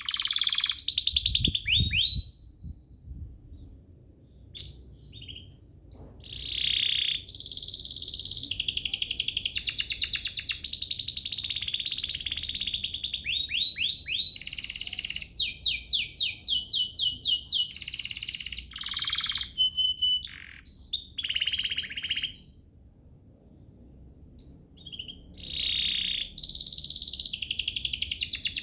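Domestic canary singing: long phrases of rapid trills and rising sweeps, broken by short pauses. A brief low rumble about a second and a half in.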